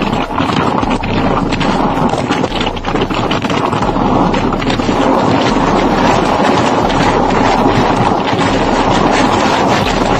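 Loud, steady rushing noise, dense and even, with many small crackles through it.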